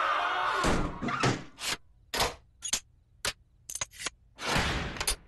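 Several cartoon voices screaming together, cut short, then a quick run of sharp knocks and clicks as a door is slammed and its locks fastened, ending in a longer rattle of the door chain near the end.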